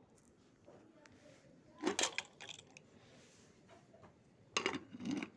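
Metal clinking and clattering from an aluminium pressure cooker being handled: one burst about two seconds in and another near the end.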